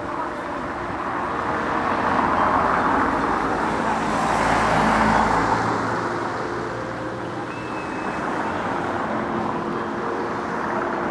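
A road vehicle passing by, growing louder to a peak about halfway through and then fading.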